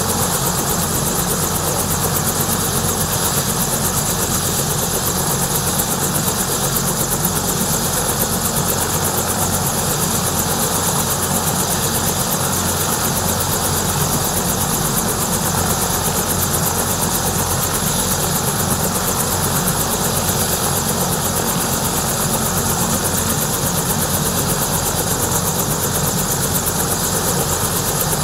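Bell 222/230 helicopter running on the ground, its twin turbine engines giving a steady high whine while the main rotor turns.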